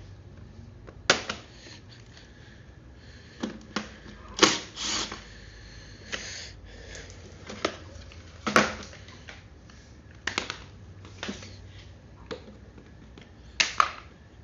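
Irregular clicks and knocks of plastic engine parts and hand tools being handled on a Briggs & Stratton lawn mower engine, about a dozen sharp taps spread out over a faint low hum.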